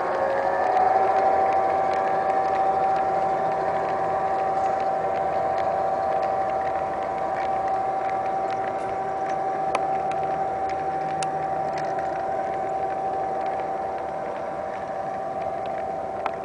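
G-scale model train passing: ONR GP9 locomotives' Phoenix sound units playing diesel engine sound at full throttle (notch 8), a steady pitched drone that steps up slightly in pitch about half a second in. Scattered light ticks from the hopper cars' wheels rolling over the track run under it.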